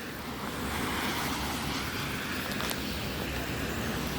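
Steady hiss of rain and rainwater runoff, with a low rumble of wind on the microphone.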